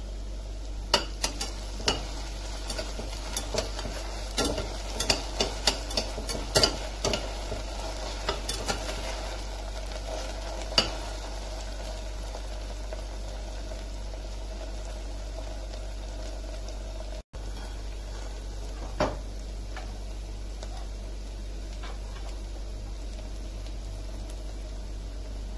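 A spatula stirring sliced onions and ginger-garlic paste as they fry in a steel pressure cooker. The spatula knocks and scrapes against the pot in a run of sharp clicks over the first ten seconds or so, with a light sizzle from the oil. The stirring then mostly stops, apart from one more knock later on.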